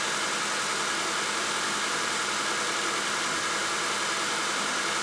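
2013 Honda Accord's 2.4-litre four-cylinder engine idling steadily, heard as an even hiss, after a too-tight valve on cylinder 4 was adjusted; it now runs a lot healthier.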